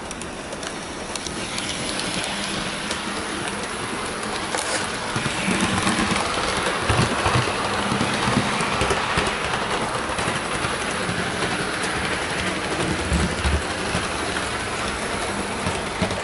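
Hornby HST model train running along the layout track: a steady rumble of motor and wheels on the rails, getting louder about five seconds in.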